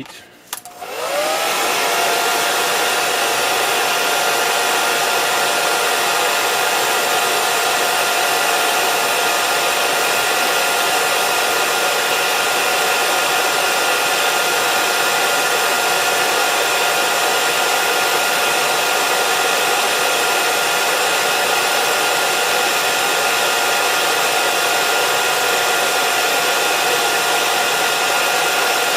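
Hair dryer on medium heat switched on about a second in, its motor whine rising to speed, then running steadily with a constant rush of air.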